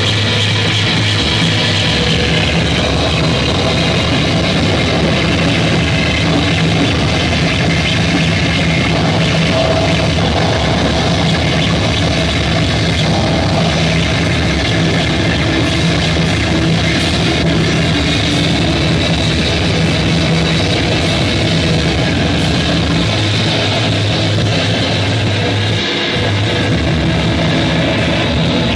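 Loud, unbroken wall of distorted noise music played live through a board of guitar effects pedals, with steady low droning tones under a harsh upper layer. The lowest drone drops away after about a second and returns a few seconds before the end.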